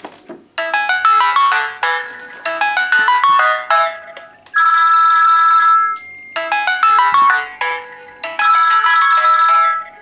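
A Samsung Galaxy S alarm and a teXet B200 incoming-call ringtone sounding at the same time. A melodic tune of quick electronic notes plays throughout. A harsh, steady buzzing ring cuts in over it in two long bursts, about four and a half seconds in and again near the end.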